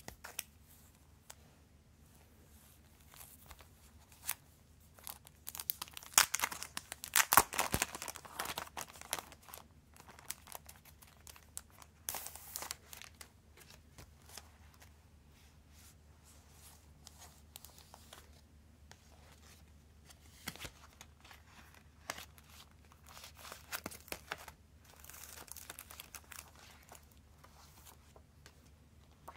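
Clear plastic wrapper on a cardboard-sleeve CD crinkling as it is pulled open and off, in irregular rustling bursts, the loudest about six to nine seconds in, with lighter clicks and rustles of the cardboard sleeves being handled between.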